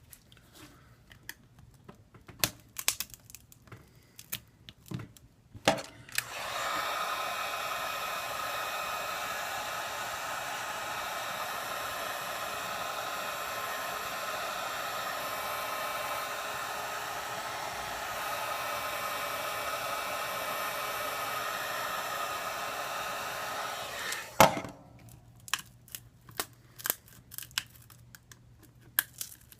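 Hot-air blower running steadily, switched on about six seconds in and cut off about eighteen seconds later, warming the phone's glued screen to soften the adhesive. Light clicks and taps of tools and handling come before and after it.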